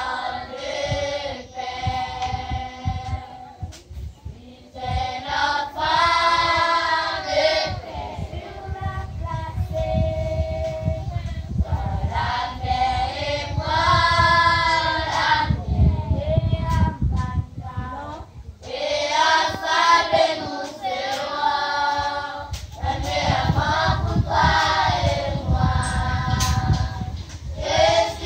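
A group of children singing together, in sung phrases a few seconds long with short pauses between them.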